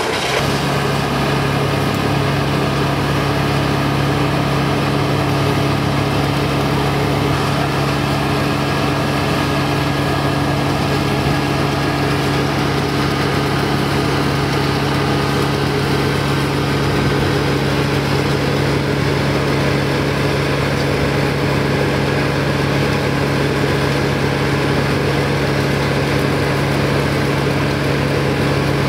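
An engine running steadily at one constant speed, a continuous even hum with no revving.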